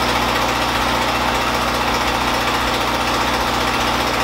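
Small gasoline engine of a portable generator running steadily at a constant speed, with an even, unchanging pitch.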